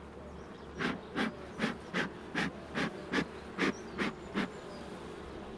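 A beekeeper's bellows smoker is puffed about ten times in quick, even succession, roughly two and a half puffs a second, giving the bees a dose of smoke. Under it runs the steady hum of honeybees.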